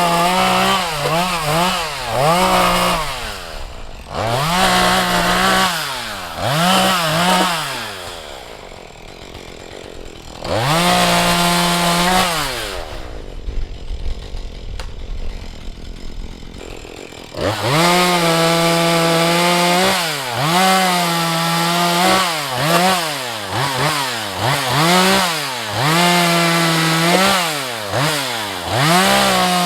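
Husqvarna 435 two-stroke chainsaw working on a tree. It is held at full throttle for a second or two at a time and revs down and back up between those stretches. It drops to a quieter lull around the middle.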